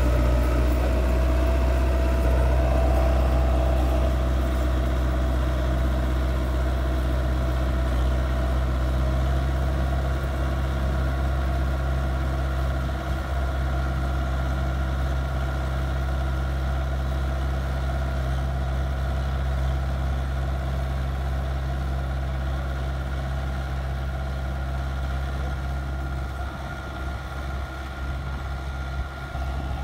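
Belarus 510 tractor's four-cylinder diesel engine running steadily under load as it pulls a ridger through tilled soil. The sound slowly grows fainter as the tractor draws away.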